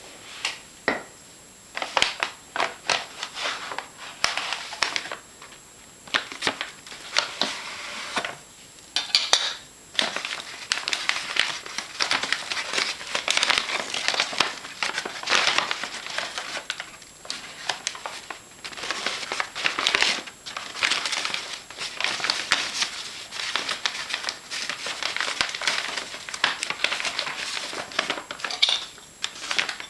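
Paper vacuum-cleaner dust bag for a Hoover Constellation being handled, crinkling and rustling in irregular bursts, with many sharp clicks and knocks of handling.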